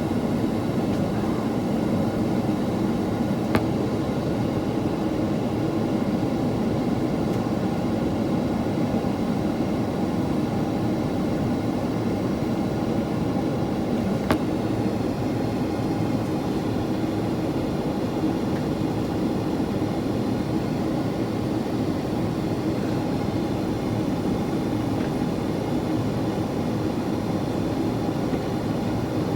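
Steady cabin noise inside a Boeing 767-400ER with its engines running: an even, low rumble of engines and airflow, with two faint clicks, one a few seconds in and one about halfway through.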